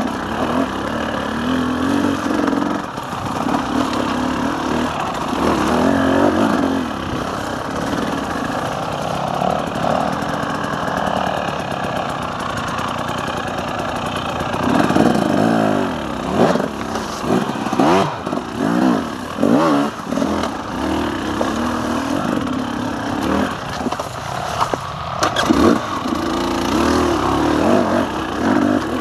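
KTM 300 EXC's two-stroke single-cylinder engine, revving up and down as the dirt bike is ridden, with a few sharp knocks along the way.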